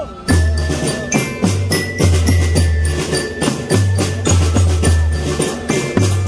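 Marching drum band playing a fast, steady drum pattern with deep low notes and a high mallet-bell melody. It breaks off for a moment right at the start.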